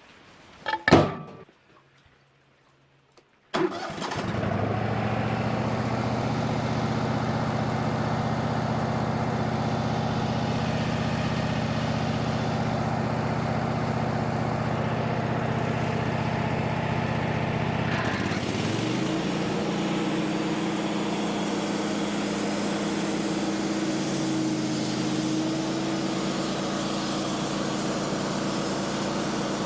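Wood-Mizer portable sawmill's engine starting about three and a half seconds in after a thump, running steadily at a low speed, then throttling up at about eighteen seconds and holding a higher, steady speed.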